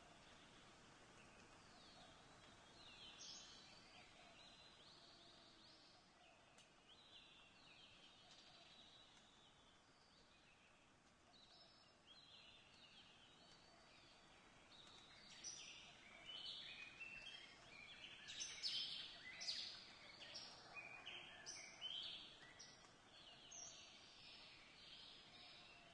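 Faint background of small birds chirping, with the calls growing busier and louder about halfway through.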